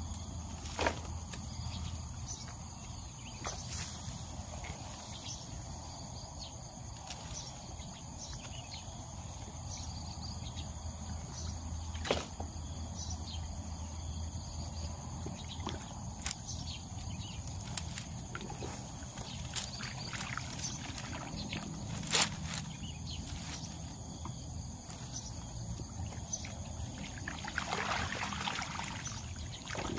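A fish trap being handled in shallow muddy water: a few sharp knocks and rustles, with a splash of water near the end, over a steady high insect drone.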